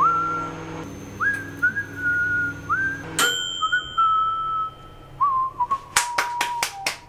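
A person whistling a short tune of notes that slide up and are held. There is a single ringing metallic ding about three seconds in, and a quick run of hand claps near the end.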